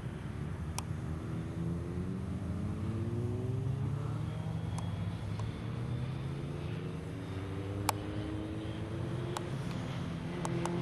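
Car engine and road rumble heard from inside a moving car. The engine note rises as the car pulls, drops back about halfway through as if at a gear change, then rises again. A few sharp clicks sound over it.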